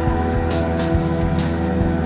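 Background music with a steady drum beat and sustained instrumental tones.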